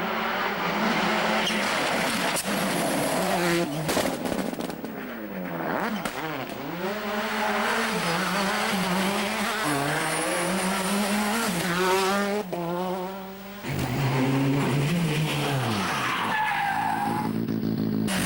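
Turbocharged four-cylinder World Rally Car engine at full effort on a stage. Its pitch climbs and drops sharply again and again through gear changes and lifts. About two-thirds through the sound breaks off abruptly to another run, where the engine note falls away as the car goes past.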